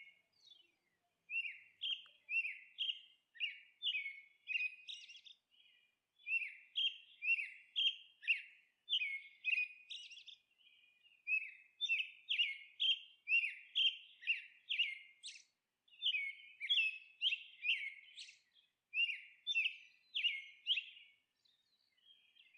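Small bird chirping: short, bright chirps about two a second, in runs of a few seconds with brief pauses between them.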